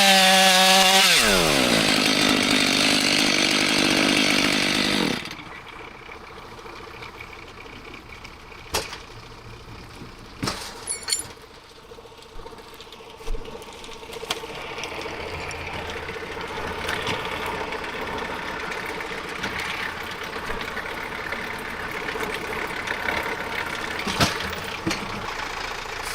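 Chainsaw engine dropping in pitch as it comes off the cut, running on loudly for a few seconds, then cutting off suddenly about five seconds in. After that there is quieter ambience with a few sharp knocks, and a low engine hum sets in about halfway through.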